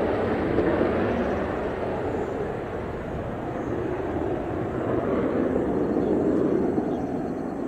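Jet noise from a Mitsubishi F-2 fighter's single F110 turbofan as it climbs away after takeoff on afterburner: a loud, even rumble that dips about three seconds in and swells again before easing near the end.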